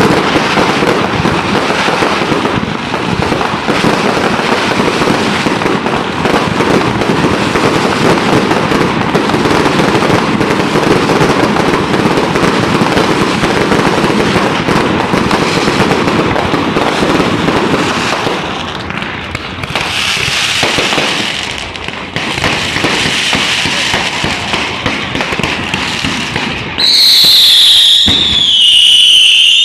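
Fireworks going off in a dense, continuous crackle of pops and bangs, thinning out after about eighteen seconds. Near the end come two loud shrill whistles, each dropping slightly in pitch, like whistling fireworks.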